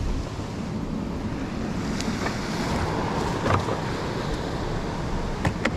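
Surf breaking on the rocks below, with wind buffeting the microphone in a steady rumble. A few brief, sharp knocks and crinkles come through about two, three and a half, and five and a half seconds in.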